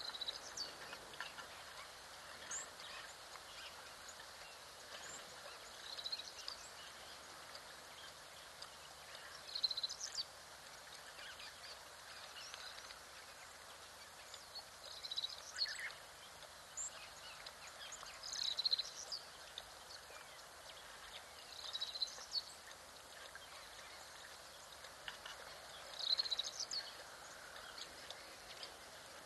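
Wild bird calls: a short, high chirping phrase repeated every three to four seconds over a faint steady hiss.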